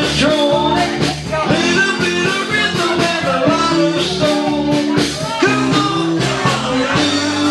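A live rock-and-roll band playing, with bass, guitar and drums keeping a steady beat and a voice singing over it.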